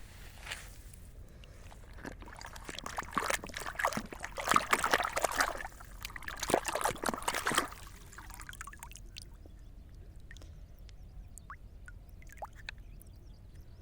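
Water splashing and pouring in dense, irregular bursts for several seconds, then dying down to faint trickling with scattered small clicks.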